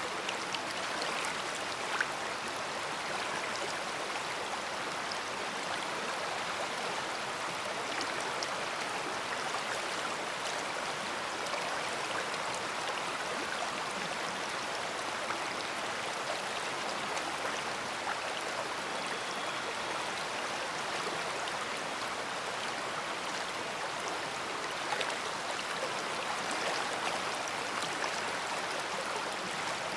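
A big river flowing: a steady rushing of water, with faint splashes and trickles in it.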